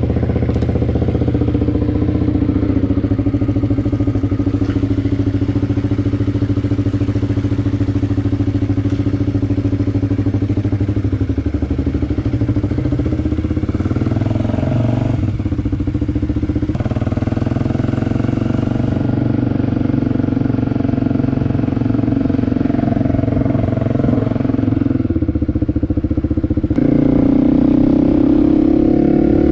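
Kawasaki KLX250 dual-sport motorcycle's single-cylinder four-stroke engine running steadily. Near the end it gets louder and its pitch rises as the engine is revved up.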